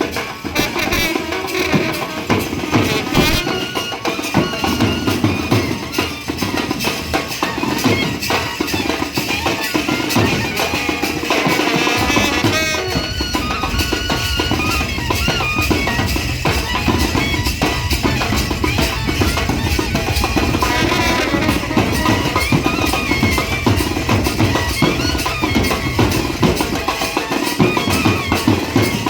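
Indian brass band playing a folk-style tune: melody instruments over steady drumming.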